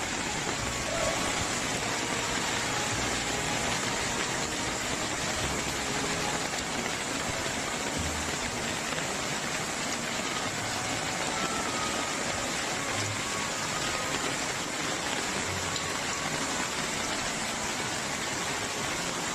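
Heavy rain and muddy floodwater rushing down a street together make a steady, even hiss that never lets up.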